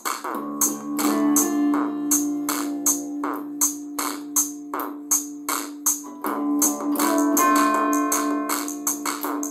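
Instrumental music with a steady beat and held pitched notes.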